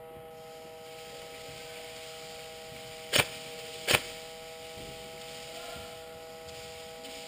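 Two sharp airsoft gun shots about 0.7 s apart, over a steady electrical hum.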